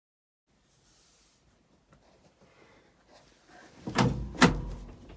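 A vehicle door being shut: two loud thuds about half a second apart, after a few faint handling noises.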